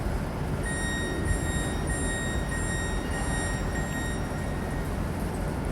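A Southeastern Class 395 high-speed train standing at the platform, its equipment running with a steady low rumble. Under a second in, a high steady tone starts, and it stops about three and a half seconds later.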